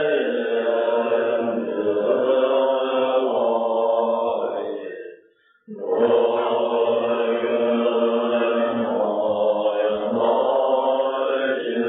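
Tibetan Buddhist ritual chanting: long, level-pitched recited phrases with one short breath break about halfway through.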